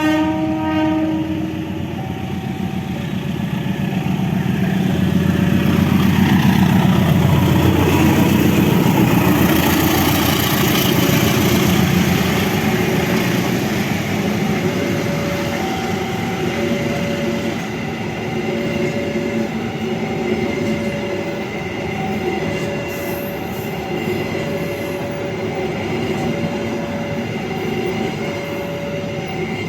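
A train horn sounds and stops about a second in, then a train passes with running noise and wheel clatter, loudest around a quarter to a third of the way through and easing off after. A two-note electronic beeping, low and high notes alternating about once a second, repeats behind it.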